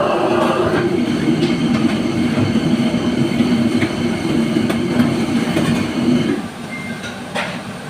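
A steady machine hum with a strong low tone that drops away about six seconds in, followed by a few faint clicks.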